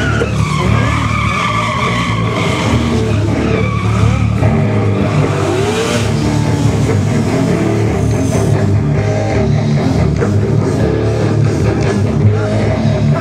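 Sport motorcycle engine running and revving as it is ridden in tight stunt turns. Its tyres squeal for the first few seconds. Rock music plays at the same time.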